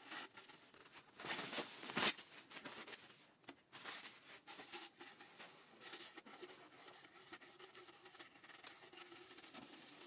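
Paper shop towel rustling and rubbing inside a bicycle fork's lower slider leg as it is pushed through to clean it. There is a loud knock about two seconds in, then softer scrapes and handling clicks.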